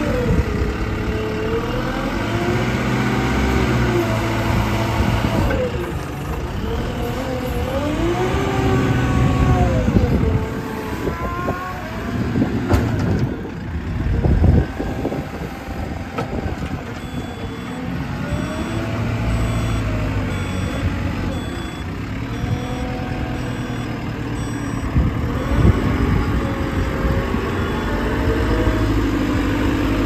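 2016 JCB 3CX backhoe loader's four-cylinder diesel engine revving up and down as the machine works its loader bucket into a sand pile and moves about. About halfway through, a reversing alarm beeps steadily for several seconds.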